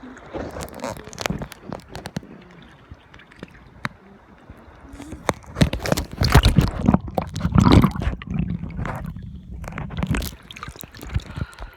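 Sea water sloshing and splashing close to the microphone, with scattered knocks and rustling; the loudest surge of splashing comes about six to eight seconds in.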